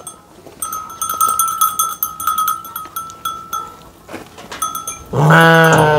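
A metal livestock bell clinks and rings repeatedly amid a flock of sheep and goats. Near the end one of the animals gives a loud bleat.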